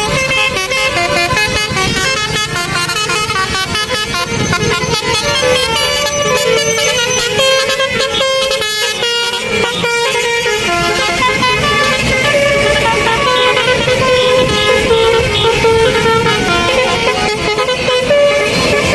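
Indonesian bus 'telolet basuri' musical air horns playing a tune, held tones stepping up and down in pitch without a break.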